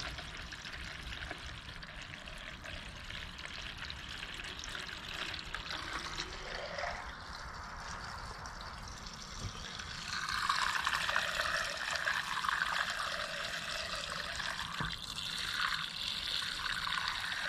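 Gasoline pouring from a plastic gas can into the fuel tank of a Generac GP6500 portable generator: a steady trickling splash of fuel into the tank that gets louder about ten seconds in.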